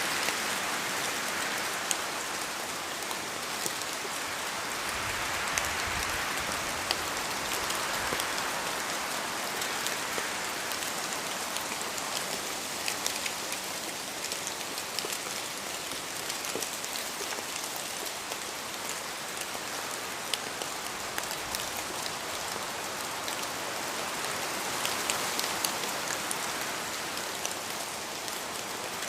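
Steady rain falling in a forest: a dense, even hiss with sharp ticks of single drops, swelling slowly a few times as wind gusts through the trees.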